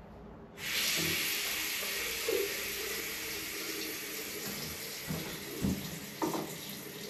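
Tap turned on about half a second in, water running out with a steady hiss, draining the last water from the pipes with the mains supply shut off. A few light knocks are heard over it.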